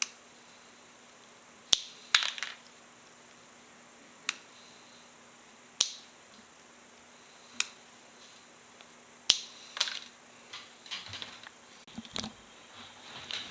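Sharp, separate plastic clicks as sleepers are broken off a length of model railroad track one at a time, a click every second or two. Lighter clattering follows near the end.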